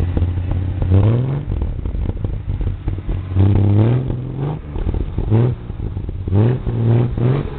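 Ford rat rod's engine rumbling through its exhaust, revved in a series of short bursts that each rise in pitch. One longer rev comes about halfway through, and quick ones cluster near the end.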